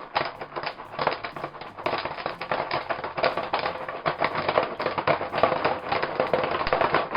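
Jiffy Pop popcorn popping in its foil pan on a butane camp stove: a dense, fast, irregular crackle of kernels bursting, getting busier toward the end.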